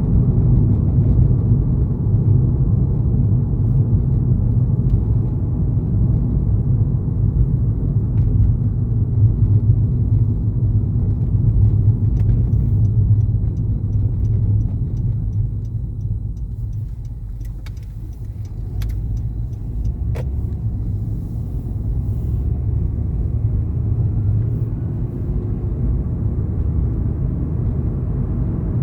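A car driving: steady low rumble of engine and tyres on the road. It eases off for a few seconds past the middle, with a few faint clicks.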